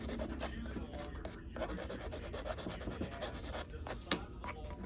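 Hand nail file rubbed quickly back and forth across the nails of a practice mannequin hand, making a run of rapid scratchy strokes that become sparser near the end.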